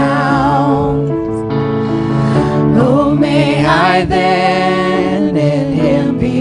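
Live worship band music: singing with wavering vibrato over held chords and electric guitar.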